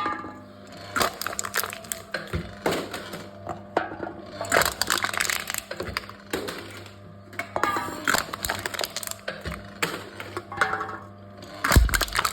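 Aluminum cans being crushed by a wooden crushing machine: a run of irregular crackling crunches as the metal folds, with one heavy thump near the end.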